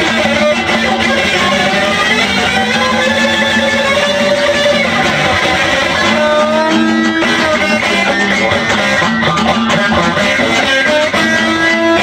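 Electric guitar played continuously with fast strumming, some notes sliding in pitch.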